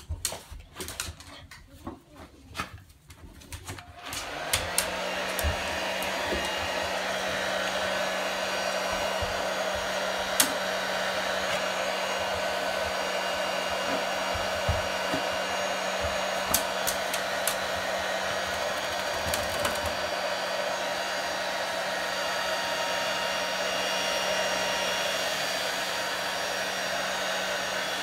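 Handheld hair dryer switched on about four and a half seconds in, then running steadily with a constant low hum while it dries a small wet dog. A few clicks and knocks come before it starts, with occasional clicks over the running dryer.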